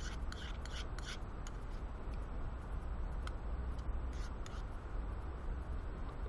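A spoon scraping inside a metal mug while scooping up rice: a cluster of short scrapes in the first second and a couple more about four seconds in, over a steady low rumble.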